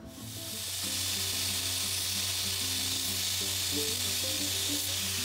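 Belt grinder running with a steady hiss and low motor hum as the plastic EasyShoe cuff is held against its abrasive belt. The hiss builds over the first second. The cuff is being scuffed to remove mold release agent before welding.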